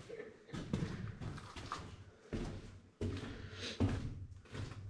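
Footsteps and scuffs on a cracked, debris-strewn concrete floor: a few irregular knocks and scrapes, with a brief faint tone about a second and a half in.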